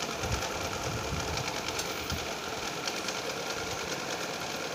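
A small motor whirring steadily.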